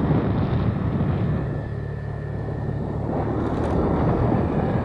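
Motorcycle running while being ridden, a steady low drone of engine and road noise, with the engine note holding steady for a second or so around the middle.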